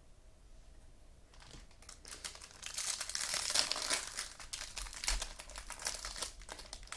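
Plastic wrapping crinkling and crackling as it is handled, building from about a second in and thinning out toward the end.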